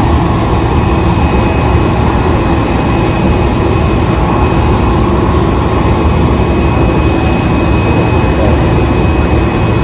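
Steady loud drone of a parked jet aircraft's turbine, with a constant high whine over it.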